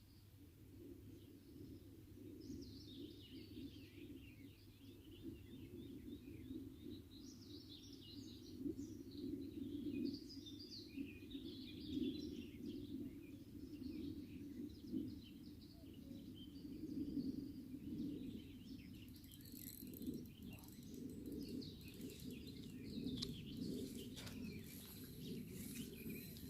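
Small birds chirping and calling over a steady low rush of flowing stream water. There are a few faint clicks near the end.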